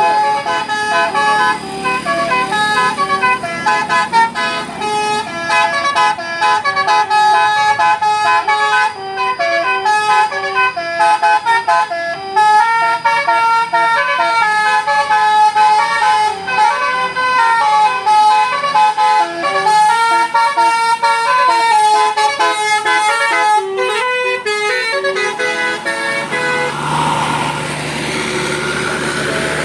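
Bus's multi-tone 'basuri' telolet melody horn playing a rapid tune of quickly changing notes. About 26 seconds in it stops and gives way to a rushing noise with a low steady hum.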